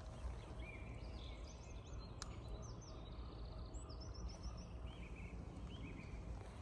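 Faint songbirds singing: scattered short chirps, with a quick trill of repeated notes about three and a half seconds in, over steady low background noise.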